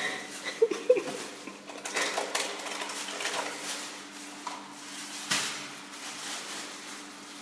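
Plastic Kinder eggs clicking and knocking against each other and a wooden bowl as a child's hand rummages through them, a scatter of small irregular clicks over a faint steady hum.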